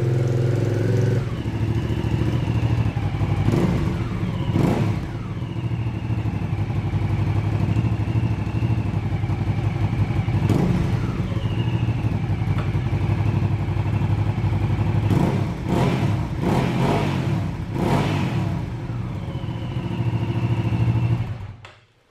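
Hyosung GV650 Aviator's V-twin engine running steadily, with a handful of short sharp bursts along the way. It is switched off about half a second before the end and cuts out suddenly.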